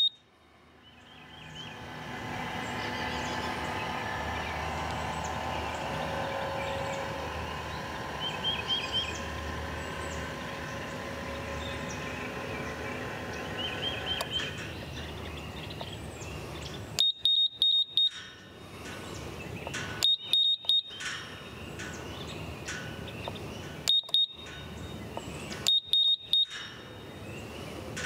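Ghost Controls gate opener's linear actuator motor running steadily as it jogs a tube gate closed, easing off about halfway through. After that, the control box gives four short series of rapid high beeps.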